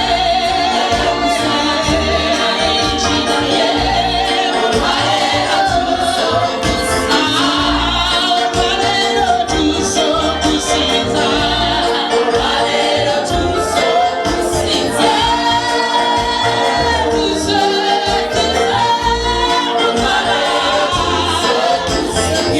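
Gospel praise music: voices singing together over a steady bass beat.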